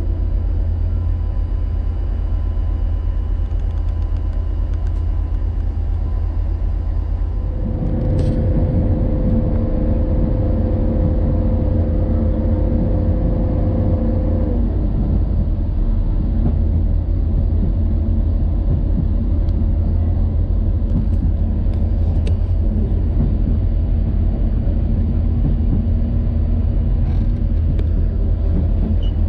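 Running sound inside a Renfe Feve two-car diesel multiple unit on narrow-gauge track: a steady low rumble of engine and wheels. It grows louder about seven seconds in, with a steady engine whine that holds for around seven seconds, and a few light clicks come later.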